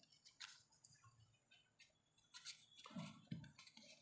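Near silence, with faint soft ticks and rustles of folded paper origami units being fitted together by hand.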